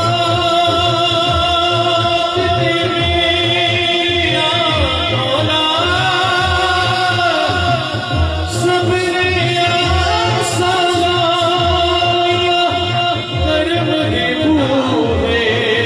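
Male voices singing a hamd, an Urdu devotional song in praise of God, in long held melodic lines over a steady low beat.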